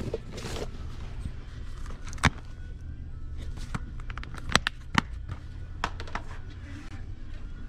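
Plastic VHS tape and video game cases clacking as they are handled and slid on wooden shelves: a few sharp clicks, the loudest about two seconds in, over a steady low hum.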